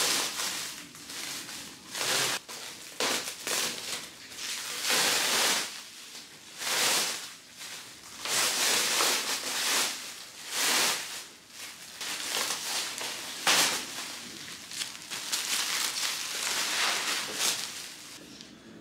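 Plastic stretch wrap and bubble wrap crinkling and rustling in irregular bursts as they are handled and pulled off an office chair.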